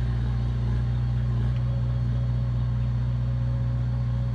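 Heavy diesel engine of earthmoving machinery running steadily, a deep even drone.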